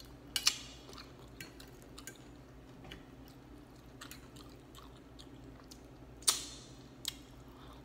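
Chewing of cheesy chicken and bacon pot pie close to the microphone, with scattered sharp clicks from mouth and fork. The loudest click comes about six seconds in.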